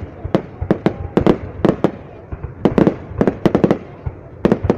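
Fireworks bursting overhead: sharp bangs in quick irregular runs of two to four, with an echoing rumble between them.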